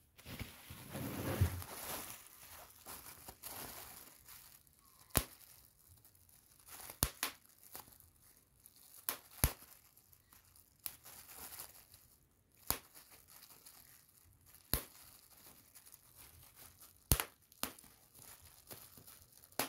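Bubble wrap handled and popped by hand: crinkling plastic, loudest in the first couple of seconds, then about a dozen single sharp pops at irregular intervals of one to two seconds.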